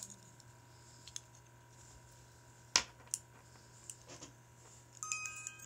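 A few sharp metallic clicks and knocks from handling a small brass music box, then about five seconds in its steel comb starts plucking tinkling notes.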